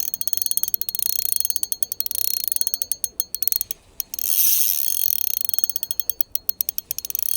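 Shimano Vanquish spinning reel clicking rapidly and evenly as it is worked. The clicking breaks off for a moment about four seconds in, under a louder rushing sound, then picks up again.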